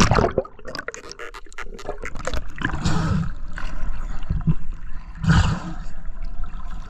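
Sea water splashing and gurgling around an action camera held at the surface by a swimmer. Bubbly crackling as the camera dips under at the start, then two louder wave splashes about three and five seconds in.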